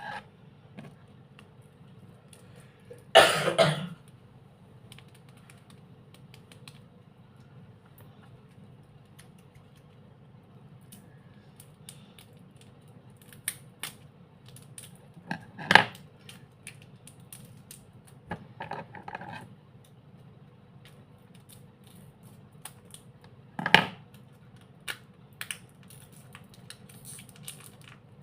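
Close-miked handling sounds from a slime unboxing: scattered light clicks and taps, with four short louder bursts, the loudest about three seconds in.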